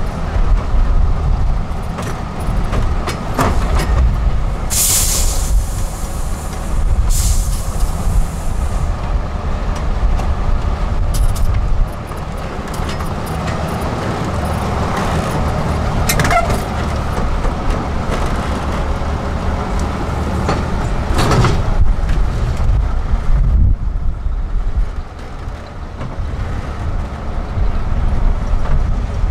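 Heavy diesel engine of an 8x8 trial truck working at low speed as the truck crawls over rocks and ruts, its level rising and falling with the throttle. Two bursts of hiss come about five and seven seconds in, and a few sharp knocks come later.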